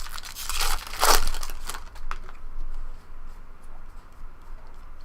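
A foil trading-card pack wrapper being torn open and crumpled: loud crinkling and tearing over the first two seconds, then faint rustling.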